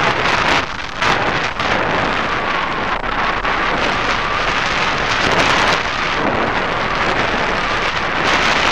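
Loud airflow rushing and buffeting over the microphone of a camera mounted on a hang glider's wing in flight, gusting unevenly with brief lulls about a second in.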